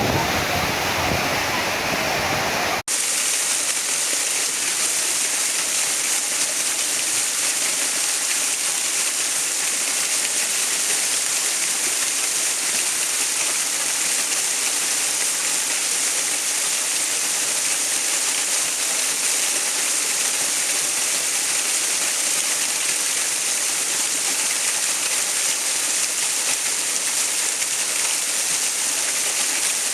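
Steady rushing water, a continuous hiss. About three seconds in the sound cuts abruptly from a fuller, deeper rush to a thinner, higher hiss, the join of a looped recording.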